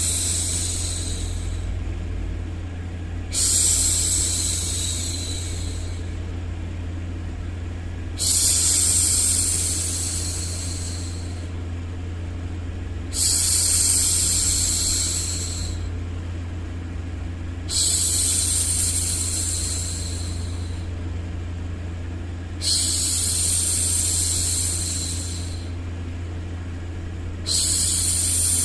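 A woman's long "shhh" for hushing a baby, repeated about every five seconds, each shush starting strongly and fading away over two to three seconds. Under it runs a steady low rumble of white noise.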